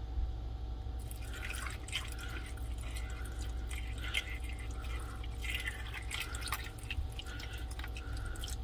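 Water poured slowly from a small bowl into a slow cooker, trickling and splashing onto sliced onions layered over a pot roast, starting about a second in.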